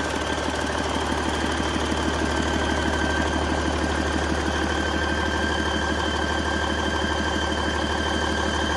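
2012 Detroit Diesel DD15 14.8-litre inline-six diesel engine idling steadily on a run stand, with a steady high whine over the diesel clatter.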